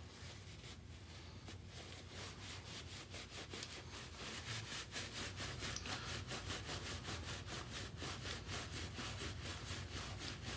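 Paper towel rubbing briskly over a briar pipe bowl, wiping off oil soap and loosened carbon from the rim. The strokes come quickly and evenly, several a second, and grow plainer after the first couple of seconds.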